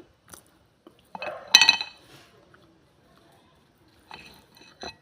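Hard pieces of baked clay cracking and clinking with a bright ring. The loudest cluster of sharp cracks comes about a second and a half in, with fainter clicks near the end.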